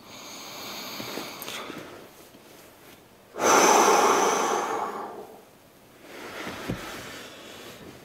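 A man breathing heavily: a long breath, then a loud, long exhale through his hands over his face about three and a half seconds in, then a softer breath near the end.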